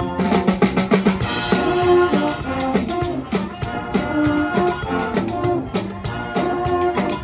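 Brass band playing a tune: sousaphones, trombones and trumpets over a drum kit keeping a steady beat.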